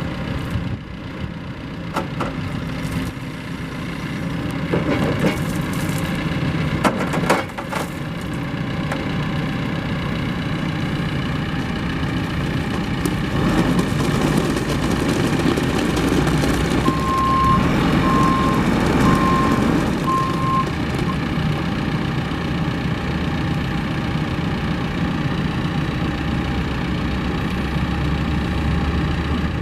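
John Deere 310SL backhoe loader's diesel engine running, with a few sharp knocks early on and heavier running from about the middle. Its backup alarm beeps four times shortly after the halfway point.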